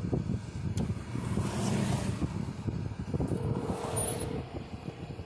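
Road and engine rumble inside a moving car as it slows on the shoulder during a traffic stop, fading near the end as the car comes to rest, with a couple of light clicks.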